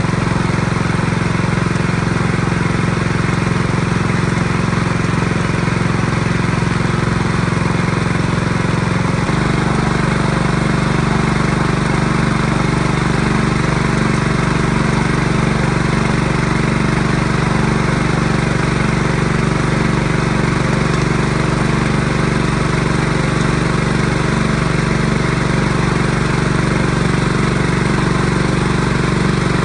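A small engine running steadily; its note changes abruptly about nine seconds in, then holds steady again.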